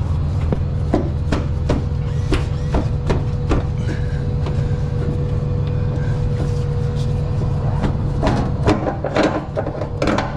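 Nylon tie-down strap being handled and pulled against a boat hull, with light clicks about twice a second and a burst of rustling and scraping near the end, over the steady hum of an idling engine.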